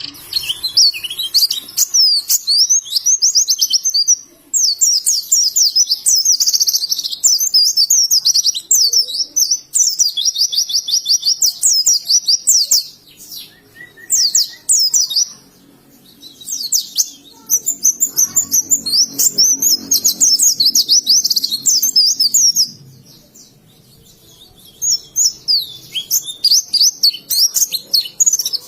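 White-eye (pleci) singing: long, fast twittering phrases of high chirps, broken by a few short pauses.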